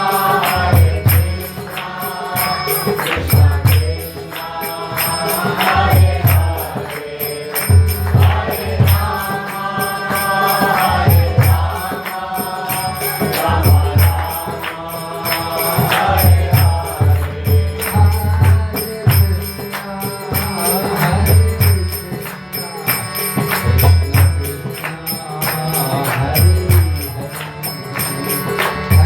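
Devotional kirtan: voices chanting a mantra to a steady hand-drum beat and bright jingling hand cymbals.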